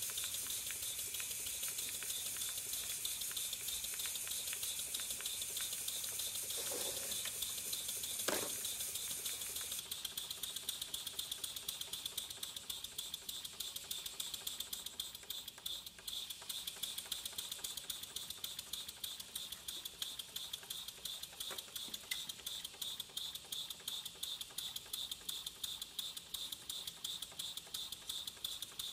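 PM Research model steam engine running on live steam, its exhaust and valve gear making a fast, even ticking beat. Steam hisses from leaking fittings, louder for the first ten seconds or so, after which the steady beat of the engine stands out.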